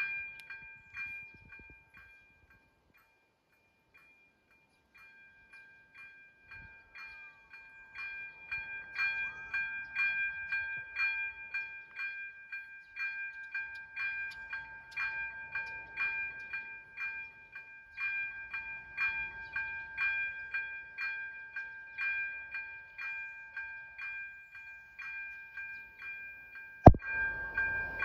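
AŽD 97 level-crossing warning bell ringing steadily, an electronic ding struck about twice a second, signalling an approaching train. It drops away for a few seconds near the start, and a single sharp knock comes near the end.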